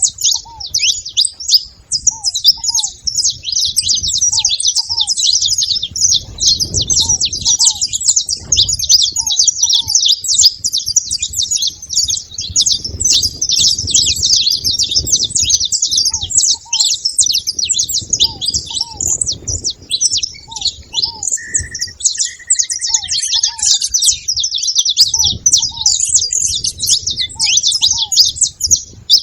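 A flock of saffron finches chirping and chattering all together in a dense, unbroken stream of high chirps. Underneath, a lower, softer call repeats in pairs of short notes, and a single short whistle sounds a little past the middle.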